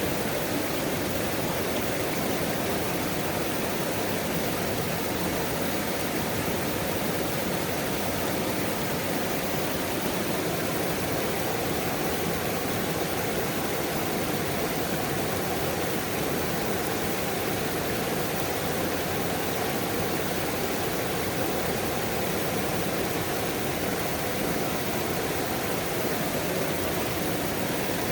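Waterfall rushing steadily, an even, unchanging sound of falling water.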